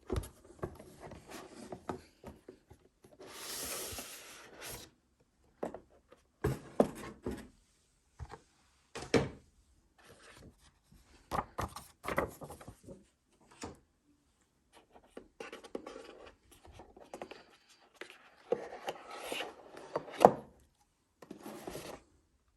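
Hands handling a table tennis blade, rubbers and their packaging: short bursts of rubbing and scraping with sharp taps and clicks, broken by brief pauses.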